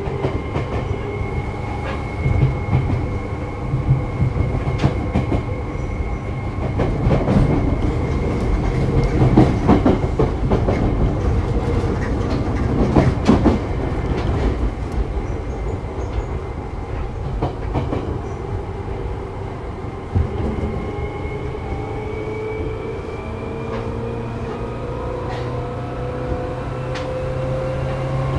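Seibu 2000 series electric commuter train running, heard from inside the car: a steady rumble with wheels clicking over rail joints, heaviest in the middle. In the last few seconds the motor whine climbs in pitch as the train picks up speed.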